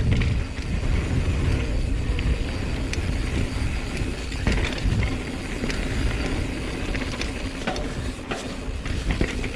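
Mountain bike riding down a dirt trail: a steady low rumble of tyres and wind, with frequent rattles and clicks from the bike.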